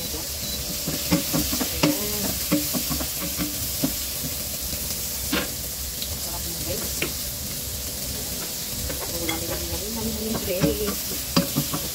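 Green bell pepper strips and garlic sizzling in coconut oil in a stainless steel wok, a steady frying hiss. A wooden spatula scrapes and knocks against the pan while stirring in the first few seconds and again near the end.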